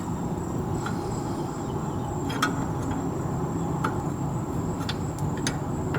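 Brake fluid dripping from an open brake line, each drop landing with a sharp tick about every second and a half, over a steady low hum.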